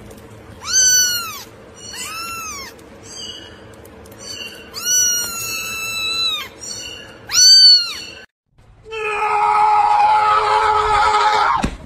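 A kitten meowing repeatedly in high, arching calls, four of them loud, the longest about five seconds in. After a brief gap near the end, a steady hissy sound with a held tone takes over for the last few seconds.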